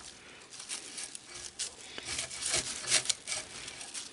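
Damp tobacco leaf scraping and tearing as its stem is pulled in short strokes through the cut-out of a stem-stripping tool. A handful of separate rasping strokes, the loudest about three seconds in.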